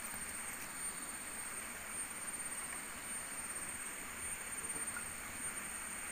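Steady forest ambience: a constant high-pitched insect drone over an even hiss, with a few faint clicks.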